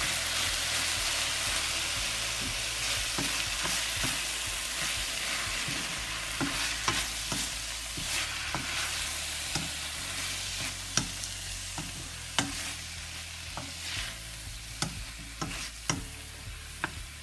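Soy-marinated pork pieces sizzling in hot oil in a metal pan with onion, garlic and tomato, just put in to sauté. A wooden spatula stirs them, scraping and knocking on the pan again and again, while the sizzle slowly eases off.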